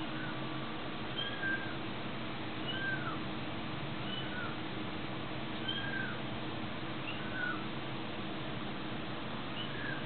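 Kitten mewing: short, high, arched mews repeated about every one to two seconds, over a steady low hum.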